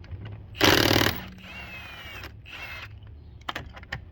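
Milwaukee cordless impact wrench hammering on a wheel's lug nut in one short burst of about half a second, zipping it loose, then its motor winding down with a falling whine.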